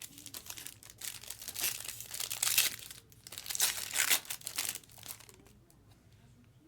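A trading-card pack being torn open and its wrapper crinkled and crumpled. There are two main spells of crackling, with a short lull about three seconds in, and it dies away after about five seconds.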